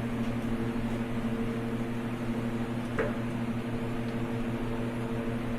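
A steady electrical or motor hum, like a fan or other running machine, with one light click about three seconds in.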